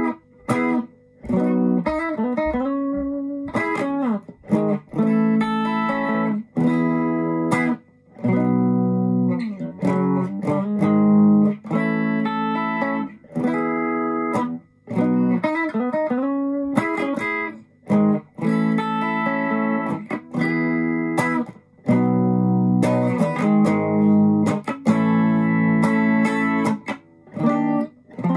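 Fender Japan ST62 Stratocaster electric guitar played through a Yamaha CO-01 compressor pedal into a Marshall Class5 amp: chords and short phrases, often cut off short, with a few bent notes.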